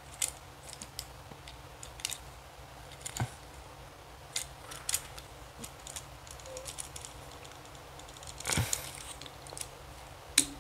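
Plastic parts of a Transformers Nightbird action figure clicking and rubbing as they are folded and pegged into place, with a longer scrape late on and a sharp snap near the end as a tab locks into its slot.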